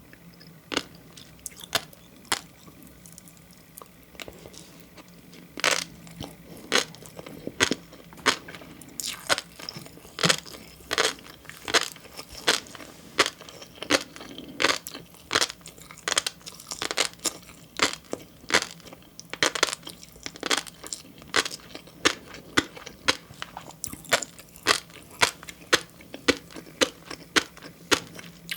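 Close-miked chewing of green flying fish roe (tobiko), its eggs bursting as sharp, crisp pops. A few pops come at first, then a short pause, then a steady run of about two pops a second.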